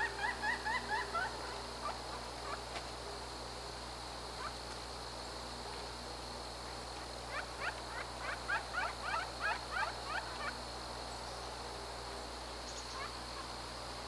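Pileated woodpecker calling: a series of short rising wuk notes, about six a second, with a short run at the start and a longer run of about a dozen notes past the middle.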